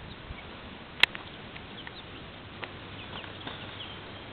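Young chickens, about five to six weeks old, peeping softly in short high chirps, with one sharp click about a second in and a few lighter taps later.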